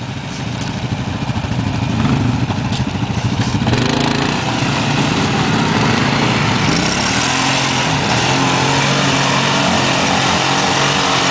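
ATV engines revving under load as the quads spin their wheels through deep mud and standing water. The sound swells over the first couple of seconds and then holds high and steady.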